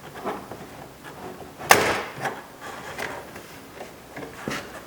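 A sharp plastic snap a little under two seconds in, with lighter clicks and knocks around it: the plastic retaining clips of an interior door trim piece popping loose as it is pried off with a screwdriver.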